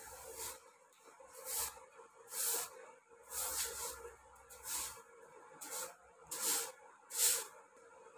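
A grass broom swept in short strokes across a smooth concrete floor, brushing loose debris. There are about nine swishes, roughly one a second.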